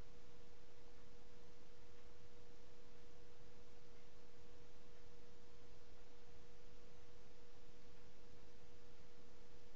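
A steady single pure tone, a constant hum a little below 500 Hz, over faint even hiss.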